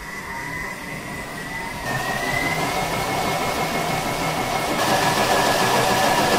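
Thermomix motor blending a cream soup, a steady whine that rises in pitch as the speed is turned up through about 7 to 8. It steps up in pitch and loudness about two seconds in and again near five seconds.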